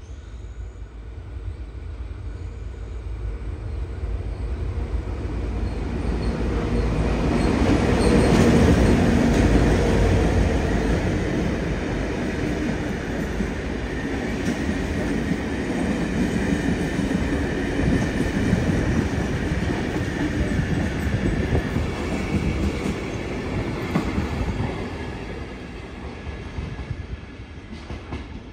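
Heritage 45 and 49 class diesel locomotives hauling a passenger train past. Their engines grow louder to a peak about eight seconds in, then the carriages roll by and the sound fades near the end.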